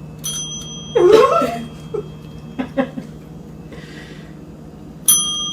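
A small bell struck by a cat: a faint ding about a third of a second in, then a loud ding near the end that rings on. A short cry, typical of a cat meowing, comes about a second in.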